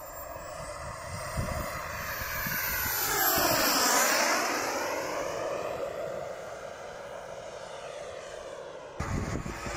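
Behotec 180 turbine of a SebArt Avanti S radio-controlled model jet whining on a low flypast. It swells to its loudest about four seconds in as the jet passes close, then fades as it flies away.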